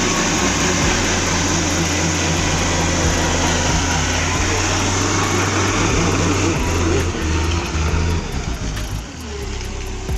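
Mitsubishi Canter truck's diesel engine running hard under load as the loaded truck works through mud, a loud steady drone that breaks up about seven seconds in and eases off near the end.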